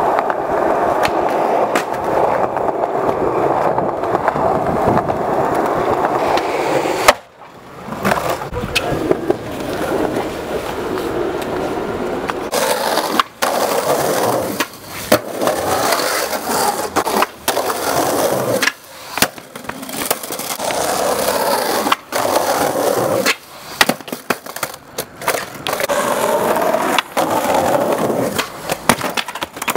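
Skateboard wheels rolling over rough concrete, broken by sharp cracks and clacks of the board from tricks and landings. The loudest crack comes about seven seconds in, and the rolling briefly drops away after it.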